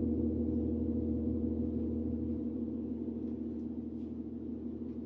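A large gong ringing on after a single stroke, a deep, many-toned hum that slowly fades.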